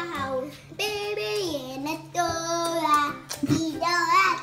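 A child singing wordlessly in about four long, held phrases, the pitch sliding up and down.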